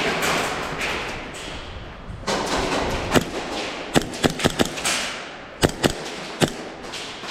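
Airsoft guns firing, about nine sharp single cracks spread irregularly over the second half, some in quick succession, after a couple of seconds of rustling movement noise.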